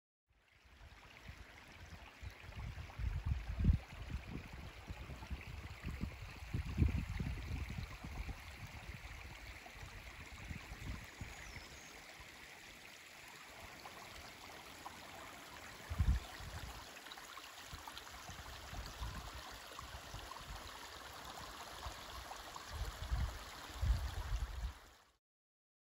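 Shallow woodland brook trickling over stones, a steady running-water hiss. Irregular low rumbles come and go over it, loudest a few seconds in, around the middle and near the end.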